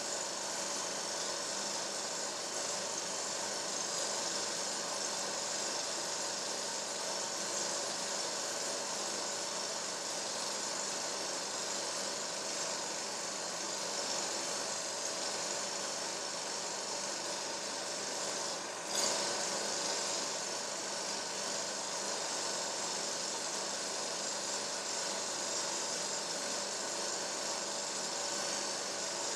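A steady mechanical hum and hiss that does not change, with one sharp click about nineteen seconds in.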